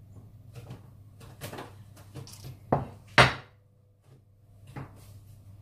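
A ceramic baking dish holding a loaf of bread set down on a wooden butcher-block board: two sharp knocks a half-second apart, the second louder, among small clatters.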